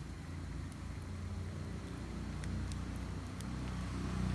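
Low, steady hum of a motor engine that slowly grows louder, like a vehicle coming closer. A few faint crackles from the wood fire are heard over it.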